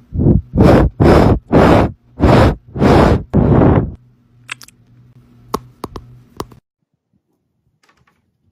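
A cat with its face pressed against the microphone, blowing seven loud, rough puffs of air about half a second apart, then a few light clicks.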